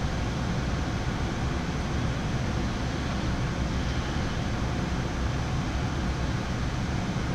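Flight-deck noise of a Boeing 787-9 in flight: a steady, even rush at a constant level.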